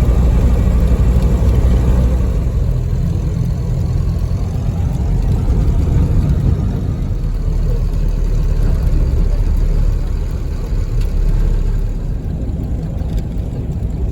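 Loud, steady low rumble, easing a little near the end.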